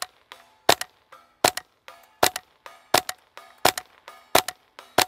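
Suppressed Kriss Vector .22 LR semi-automatic carbine firing a steady string of about eight shots, one every three-quarters of a second or so. A third of a second or so after each shot comes a fainter ringing hit on a steel target down range.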